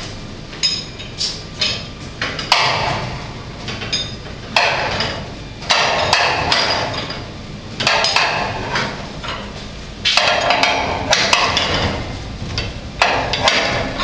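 Steel winding bars clanking in the winding cone of a garage door torsion spring as the spring is turned by hand, bar by bar: repeated metal knocks and scraping, one turn every one to three seconds.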